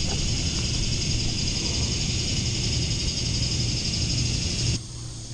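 Dense, steady chorus of high-pitched insects over a low hum, which drops away abruptly near the end to a quieter background.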